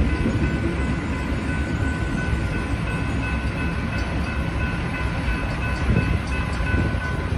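Union Pacific local freight train rolling through a grade crossing: a steady, loud low rumble of the passing cars, with a faint high steady whine above it.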